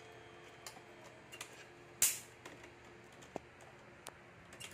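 Scattered clicks and small knocks as the hands of a Seiko quartz chiming wall clock are turned forward with its setting knob and the wooden case is handled, with one loud click about two seconds in.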